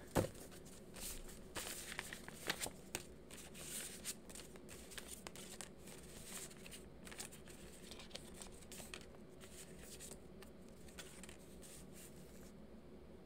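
Tarot cards shuffled and handled: quick papery flicks and slaps, with a louder tap right at the start, thinning out after about ten seconds.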